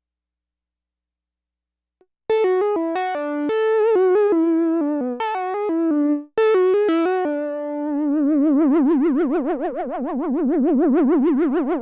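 Moog Subsequent 37 analog synthesizer: after a moment of silence, a run of short, sharply struck single notes, a brief pause, then a few more notes leading into a long held note with a fast wavering vibrato.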